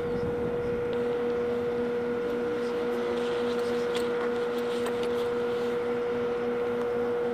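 Steady machine drone with a constant mid-pitched whine over an even rush of noise, from aircraft ground power equipment running beside a parked military transport plane whose propeller engines are shut down.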